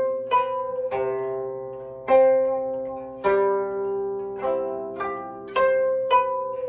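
Koto (13-string Japanese zither, here Okinawan) plucked with finger picks in the nigen-age tuning of Ryukyuan koto music, with the second string raised. It plays an unhurried melody of plucks about once a second, often two or three strings together, each left ringing and fading.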